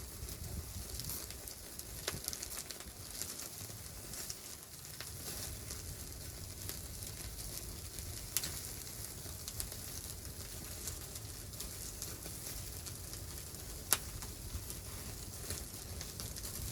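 Sizzling and crackling at a wood stove, a continuous hiss dotted with small clicks and three sharper pops, over a low steady rumble.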